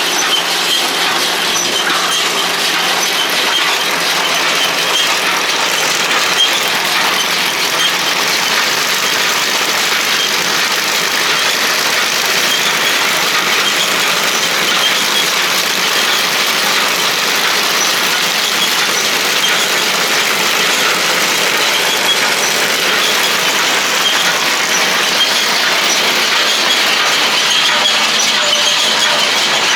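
Tractor-driven round baler running, a steady, even mechanical noise with no breaks.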